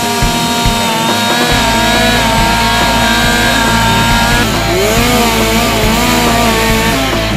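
Chainsaws running as carvers cut into logs, the small two-stroke engines held at speed with the pitch dipping and rising as a saw is revved about two thirds of the way through.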